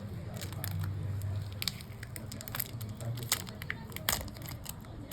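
Scattered small clicks and crackles of tools and hands working on a smartphone being taken apart, irregular and unevenly spaced, over a low steady hum.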